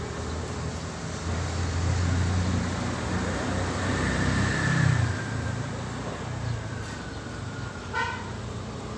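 A motor vehicle's engine rumble swelling as it passes and then fading, over steady traffic noise. A short, high-pitched animal call sounds briefly near the end.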